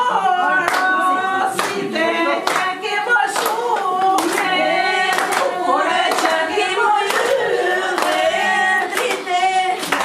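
Group of women singing a traditional Albanian wedding song together, with hand claps about once a second keeping time.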